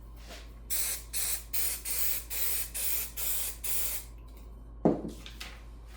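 Aerosol can of spray adhesive being sprayed in a quick series of about nine short hisses over some three seconds, putting a light coat on a paper template. About a second later comes a single sharp thump.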